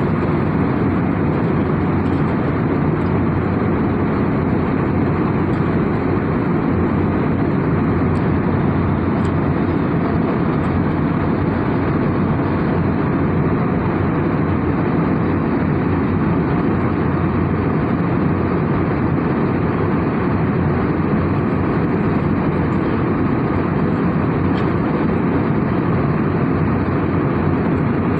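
Steady cabin noise of an airliner in flight: engine and airflow noise heard inside the cabin, even and unchanging.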